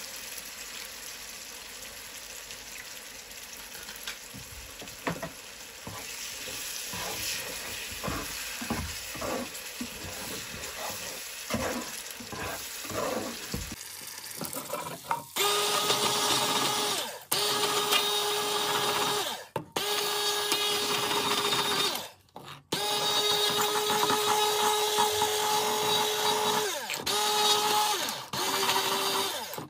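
Curry sauce simmering in a nonstick pan while a ladle stirs and scrapes it. About halfway through, a stick blender starts up with a steady motor whine, puréeing the sauce in the pan, and stops and restarts several times in short bursts.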